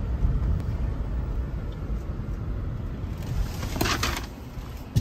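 A car's low, steady road and engine rumble as heard from inside the cabin while driving slowly, with a brief burst of noise about three and a half seconds in.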